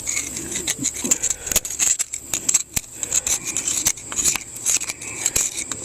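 Irregular clicks and scrapes of hand work on bare cylinder bores of an old Farmall tractor engine block with the head off, over a steady high-pitched hiss.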